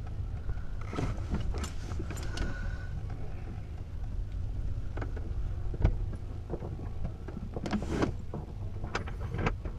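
Inside a glider's cockpit during an aerotow launch: a steady low rumble with scattered knocks, clicks and creaks from the airframe and controls. The sharpest knock comes about six seconds in.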